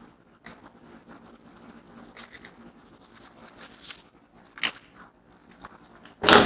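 Faint scraping and small clicks of hard objects being handled, with a sharper click about three quarters of the way in and a loud knock at the very end.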